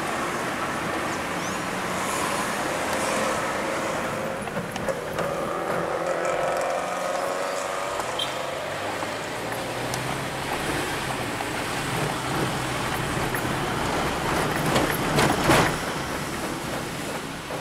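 A car running at low speed, with engine and road noise heard from inside the cabin. A steady engine hum comes through in the middle, and there is a louder rush of noise near the end.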